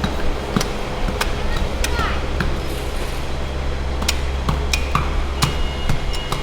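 A large knife chopping through a giant marlin: a string of sharp, irregular knocks, about a dozen in six seconds, over a steady low hum.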